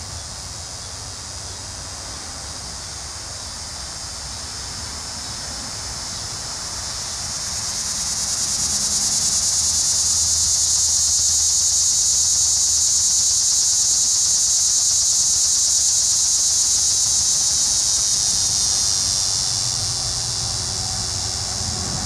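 Linne's cicada (Neotibicen linnei) calling: a high, buzzing drone. It swells up about seven seconds in, holds steady for about ten seconds, then tapers off near the end, over a fainter steady insect buzz.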